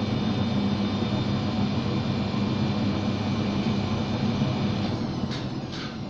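Beko 6 kg front-loading washing machine on its final spin: the drum motor runs with a steady hum. It starts to ease off near the end, with a few light clicks.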